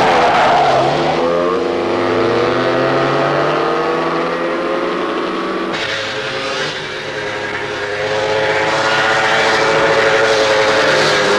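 Car engine accelerating hard, its note climbing steadily for several seconds; about halfway through the sound changes, and the engine holds at high revs and climbs again as the car speeds closer.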